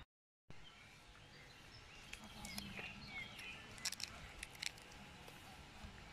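Faint outdoor background with small birds chirping, a cluster of short sharp high chirps about four seconds in. The sound drops out for half a second at the very start.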